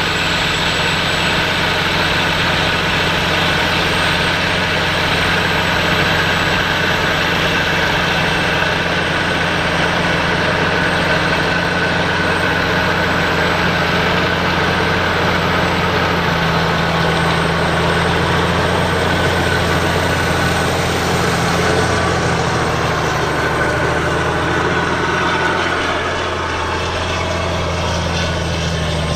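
A heavy engine running steadily at an even speed, with a constant low drone.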